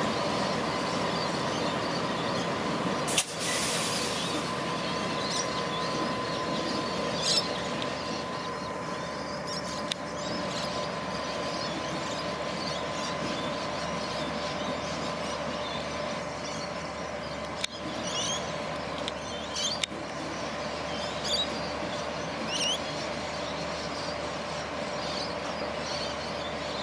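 Train rolling slowly along the rails, a steady running noise with a sustained wheel squeal that gradually eases, and a few sharp clicks.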